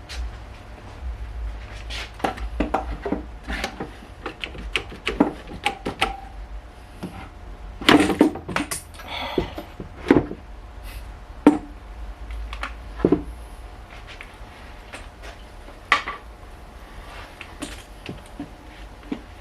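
Metal tools and car parts being handled on a workbench: scattered clinks, clatters and knocks, with a dense burst about eight seconds in, over a faint steady low hum.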